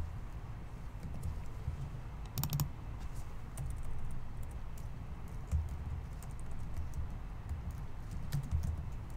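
Computer keyboard typing: irregular keystrokes in short runs, with a quick burst of several keys about two and a half seconds in, over a low steady hum.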